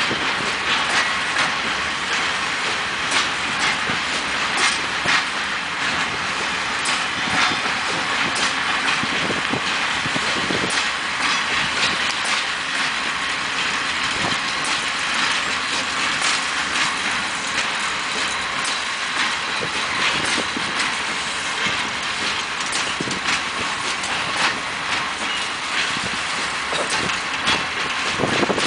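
Long, heavy freight train of open coal wagons rolling by: a steady rolling rumble of steel wheels on rail, with frequent irregular clacks as the wheels cross rail joints and points.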